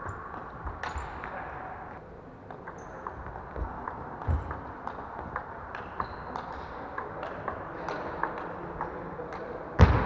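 Celluloid-type table tennis ball clicking back and forth off the table and the players' bats in a rally, a few clicks a second, in a sports hall. There is one loud thump near the end.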